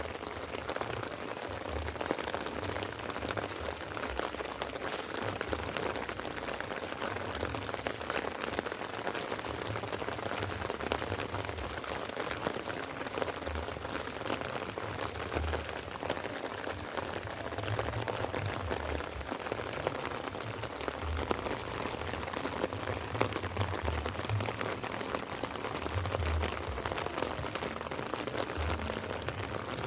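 Light rain falling steadily, a dense patter of small drops, with irregular low rumbles underneath.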